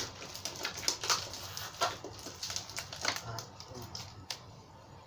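Scattered sharp clicks and taps from a small product box being handled and turned over, about five or six over the first four seconds, fewer near the end.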